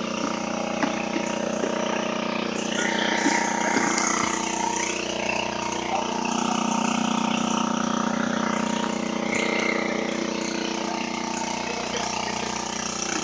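A boat engine running at a steady speed.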